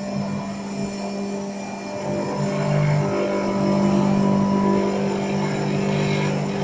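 Homemade electric hammer mill running and grinding granulated table sugar into powdered sugar: a steady motor hum and whir, a little louder from about halfway through.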